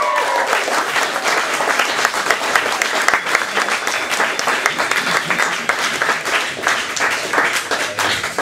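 Audience applauding: dense clapping from a crowd at the end of a sung performance, thinning slightly near the end.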